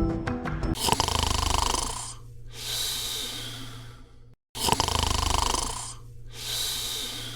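A person snoring, two breaths in a row: each a rattling snore on the in-breath, then a long hissing out-breath.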